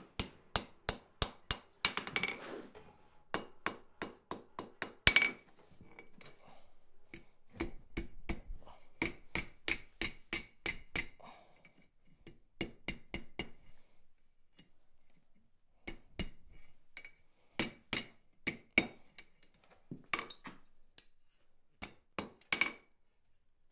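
Hand hammer striking a red-hot steel bar on an anvil as the bar is forged and bent into a hooked handle bale. The blows come in quick runs of about two to three a second with a bright ring from the anvil, broken by short pauses near the middle and toward the end.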